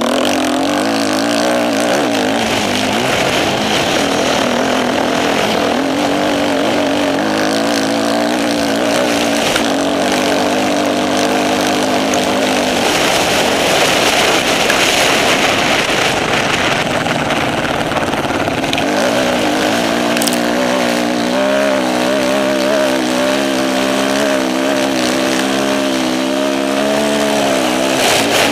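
Off-road motorcycle engine running under changing throttle, its pitch rising and falling, with a heavy rushing noise over it and the engine note dropping back for several seconds in the middle before returning strongly.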